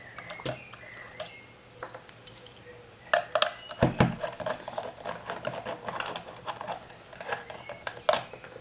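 Small screwdriver unscrewing screws from a soldering station's case: a run of light metallic clicks and taps, with a few louder knocks about three to four seconds in and again near the end.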